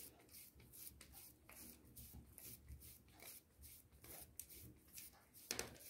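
Faint soft pats of wet maize-flour dough being pressed flat between two palms, about two a second.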